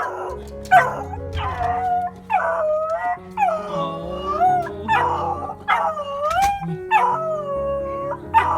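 A dog giving a run of about eight howling, whining calls, each starting sharply and then sliding up and down in pitch, in an excited greeting. Background music plays underneath.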